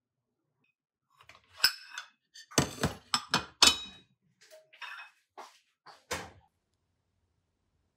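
Ceramic plates being handled and set down on a stainless-steel kitchen counter: a series of sharp knocks and clinks, the loudest cluster about three seconds in, then a few lighter taps.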